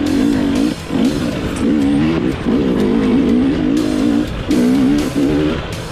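Dirt bike engine labouring up rock ledges, its revs warbling rapidly up and down as the throttle is worked and the rear wheel scrabbles for grip, with brief drops when the throttle is shut. A few sharp knocks come from the bike hitting rock.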